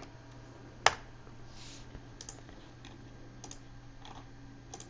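Typing on a computer keyboard: one sharp key press about a second in, then scattered lighter key clicks, over a faint steady hum.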